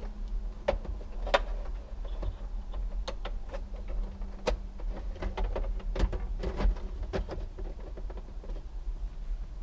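Irregular plastic clicks, taps and knocks as a car's gauge cluster is handled and seated into the bare dashboard frame, over a steady low hum.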